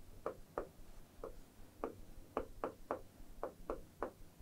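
Stylus tapping and clicking on the glass of an interactive display while writing by hand: a dozen or so light, irregular ticks.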